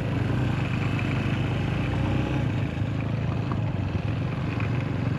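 Motorcycle engine running steadily, its pitch holding level throughout.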